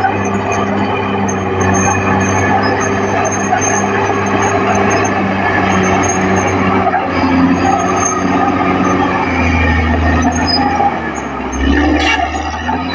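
Caterpillar D6R XL bulldozer's diesel engine running steadily, its note dropping lower about ten seconds in. There is a brief sharp clank near the end.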